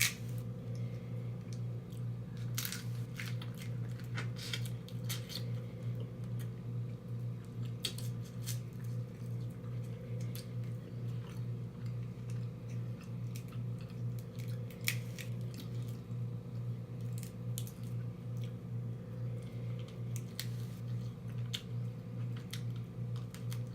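Close-up chewing and lip smacking while eating seafood, with scattered sharp clicks and crunches, over a steady low hum.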